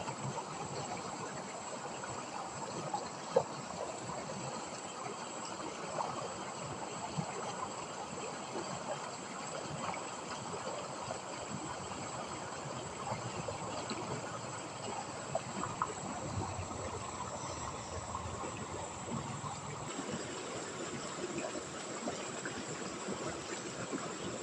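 Shallow river water running steadily, with a continuous high-pitched insect drone over it and scattered small knocks and splashes.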